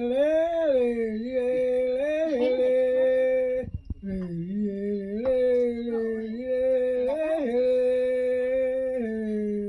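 A person humming a wordless, melodic call tune in two long phrases of held and sliding notes, with a short break about three and a half seconds in. It is the tune-name by which people in this Khasi whistling village call one another.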